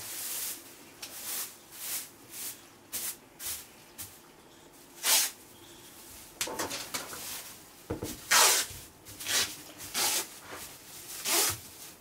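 Plastic masking film (a masker with tape) rustling and crinkling in short, irregular bursts as it is handled and pressed onto the wall, the loudest rustles about five seconds in and again about eight and a half seconds in.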